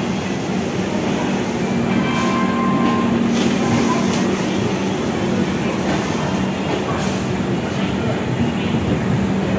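Passenger train's coaches rolling past along the platform: a steady rumble of wheels on rails with a few clicks as the wheels cross rail joints.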